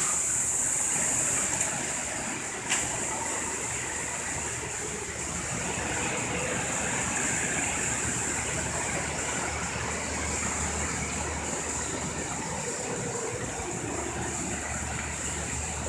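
Steady hiss of building ventilation with a low hum underneath; two short clicks come about two to three seconds in.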